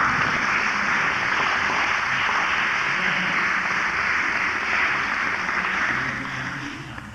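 Audience applauding, breaking out suddenly and dying away near the end.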